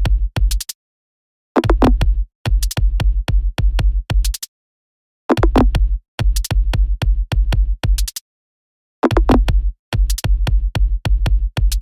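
Electronic dance music with a drum machine beat, playing in chopped phrases of two to three seconds broken by short dead stops, and cutting off near the end.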